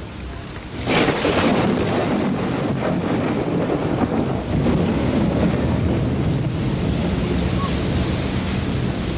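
Rain falling steadily through a thunderstorm; about a second in a thunderclap breaks suddenly and rolls on as a long low rumble.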